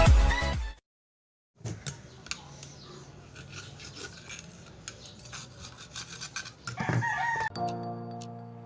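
Dance music cuts off in the first second; after a short silence come faint scrapes and clicks of a knife prying open a clam shell. A short call sounds about seven seconds in, and background music starts near the end.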